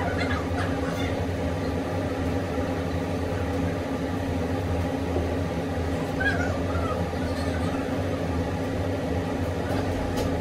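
Air conditioner running with a steady hum. A brief faint whine about six seconds in.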